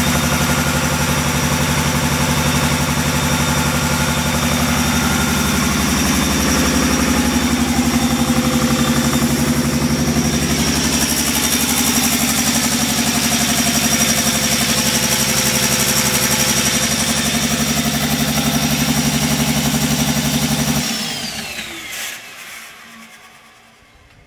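Sisu 84CTA diesel generator engine running at a steady, constant speed with a running fault that makes it limp, a high whine over it. About 21 seconds in it shuts off and winds down, the whine falling in pitch as it dies away.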